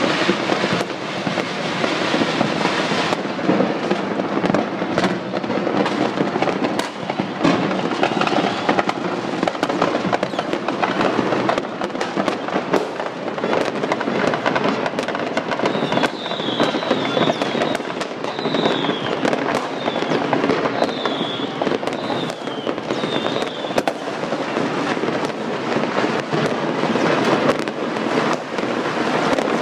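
New Year fireworks and firecrackers going off all over a city: a continuous barrage of many overlapping bangs and crackles. For several seconds past the middle, short high whistles rise and fall over the crackle.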